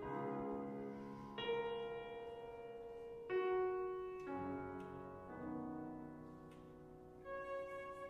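Flute and piano playing slow, freely timed classical music: long held notes, with a new note or chord entering every one to three seconds and fading away between.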